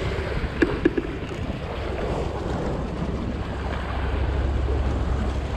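Wind buffeting the microphone over waves washing against the rocks, with a few sharp clicks a little under a second in.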